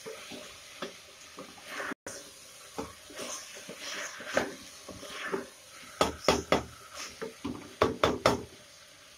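Spatula stirring vegetables being sautéed in a metal pressure cooker: irregular scraping and clacking against the pot, with a quick run of sharp knocks about six seconds in and another near the end.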